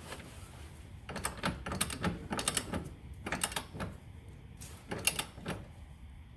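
Ratchet wrench clicking in several short bursts of strokes, tightening a rear shock mounting bolt.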